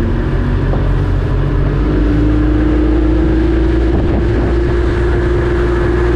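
Small fishing boat's engine running under way, a steady low drone that gets stronger and slightly higher in pitch about two seconds in as the boat speeds up.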